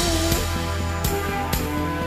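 A Cantonese song playing in the short instrumental gap between sung lines: a held melody over backing with a steady beat.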